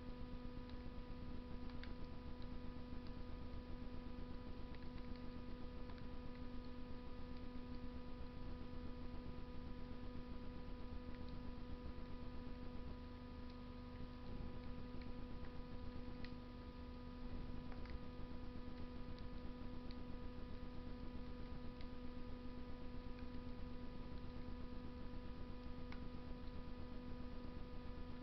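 Wood fire burning in a Russian masonry stove, giving occasional sharp crackles and pops, over a steady electrical hum.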